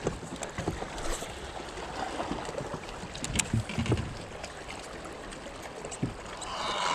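Lake water lapping against a fishing boat's hull, with wind on the microphone and a few light knocks. A drawn-out pitched sound starts just before the end.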